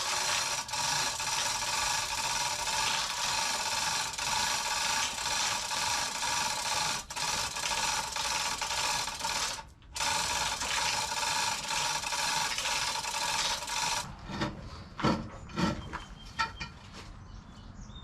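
Woodland Mills HM130 MAX bandsaw sawmill running and cutting through a Douglas fir log: a steady, dense rasping noise with several steady tones. It stops abruptly about fourteen seconds in, followed by a few sharp knocks.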